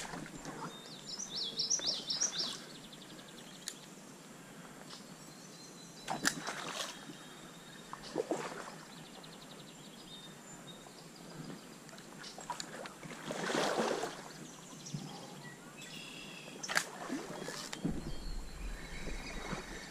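Quiet streamside ambience: a songbird sings a quick chirping phrase about a second in, with fainter trills later. Several short bursts of noise, likely handling and movement, break in at intervals.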